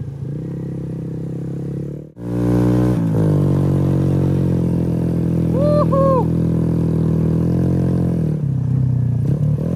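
Cimatti Bulk motorcycle engine running at steady, high revs in soft sand, where the rear wheel keeps spinning in place. The sound cuts out abruptly about two seconds in, comes back louder, and dips briefly near the end.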